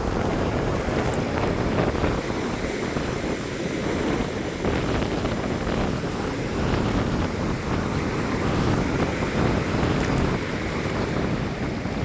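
Ocean surf washing up on the beach, with wind buffeting the microphone.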